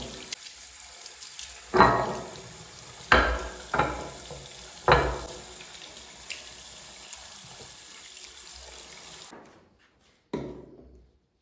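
Water running from a tap into a sink, with several sharp knocks of things handled in it, until the tap is shut off about nine seconds in; one more knock follows near the end.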